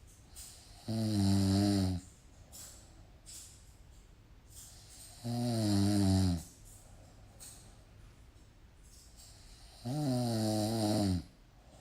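A person snoring slowly and evenly: three loud rasping snores, each about a second long, coming roughly every four and a half seconds.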